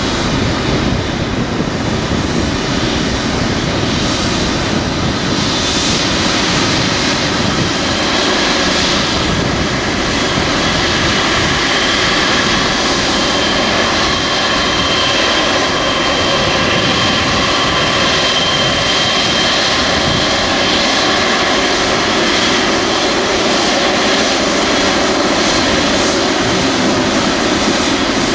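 A Boeing 777-300ER's General Electric GE90 turbofans at low taxi power as the airliner rolls off the runway and turns past on the exit taxiway after landing: a steady, low jet-engine sound, with a faint thin high whine in the middle.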